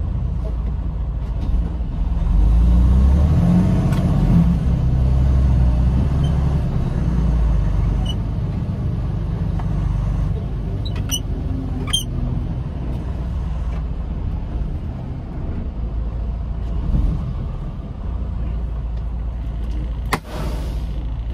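Tractor-trailer truck running inside the cab, a steady low engine and road rumble that is loudest a few seconds in and settles as the truck slows to a stop. A brief burst of noise near the end.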